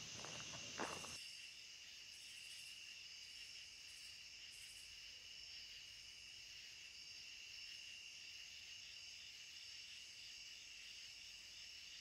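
Faint, steady chorus of insects, several high tones held without a break. A few light clicks and rustles come in about the first second.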